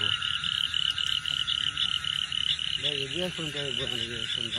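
Night chorus of frogs calling in a steady pulsing rhythm, about five pulses a second, over a continuous lower trill. A voice speaks briefly past the middle.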